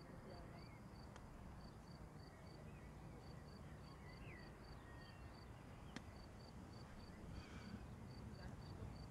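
Faint outdoor ambience: an insect chirping in a steady high pulsed rhythm of about four pulses a second. A few faint bird chirps and a low rumble of wind or distant background lie under it.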